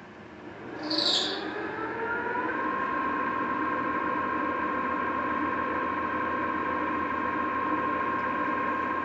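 TOS SN71C engine lathe's geared headstock starting up: a mechanical whine rises in pitch for about two seconds as the spindle and 12-inch three-jaw chuck come up to speed, then holds steady. A short high-pitched hiss comes about a second in, as it engages.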